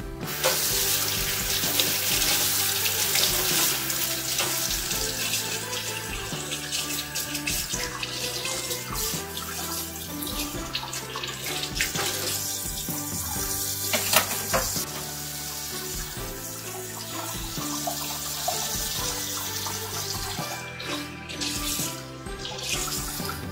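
Kitchen faucet turned on about half a second in, then running and splashing into a stainless steel sink as a measuring spoon is rinsed and hands are washed under the stream. Background music with a steady beat plays underneath.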